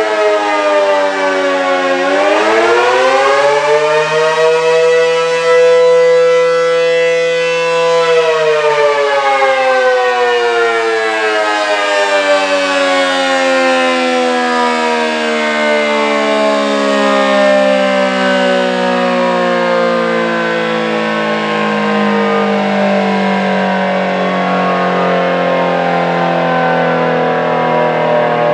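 ACA P-10 dual-tone outdoor warning siren (500/667 Hz) sounding the end of its attack signal. Its two-note chord dips, climbs back and holds for a few seconds, then about eight seconds in it winds down, the pitch sliding steadily lower as the rotor slows.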